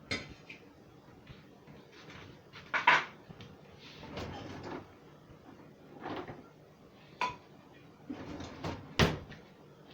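Dishes, pans and utensils being handled: scattered knocks and clatters with quiet gaps between them, the loudest knock about nine seconds in.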